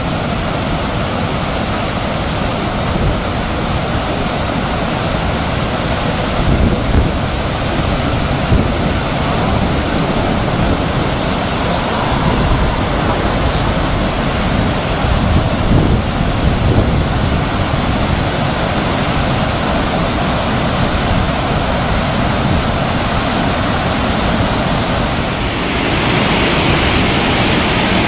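Steady rush of heavy white water pouring from dam spillway gates down a rocky gorge. About 25 seconds in the rush grows brighter and a little louder.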